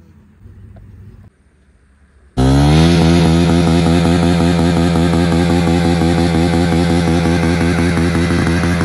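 Motorcycle engine held at high revs, starting suddenly about two seconds in and running loud and steady with a rapid, regular wavering in its pitch.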